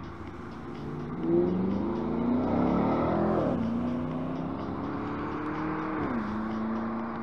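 Cars passing close by on a busy road. Their engine note rises as each one approaches and drops sharply as it goes past: once about three and a half seconds in, and again about six seconds in. Tyre noise runs underneath.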